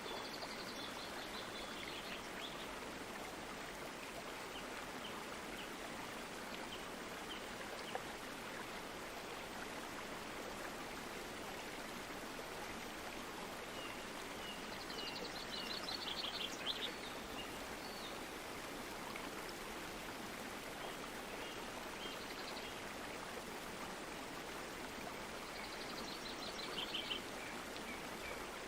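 Stream water flowing in a steady, even rush. Birds call faintly over it in short bursts of quick, high repeated notes: near the start, about halfway through, and again near the end.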